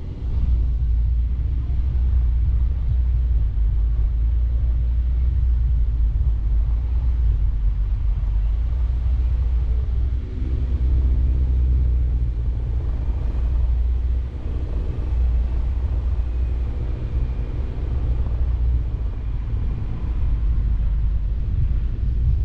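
Mini Cooper Countryman ALL4 driving off-road: a steady, loud low rumble of the car and its tyres, with the engine note shifting in pitch around the middle.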